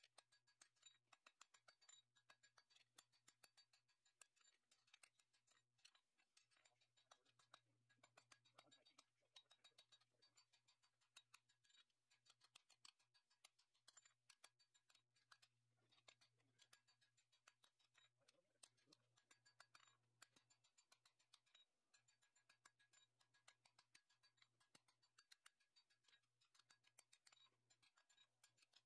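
Very faint hand-hammer blows on a glowing 5160 spring-steel blade over an anvil: a steady run of light ticks, about three a second, with a low hum underneath.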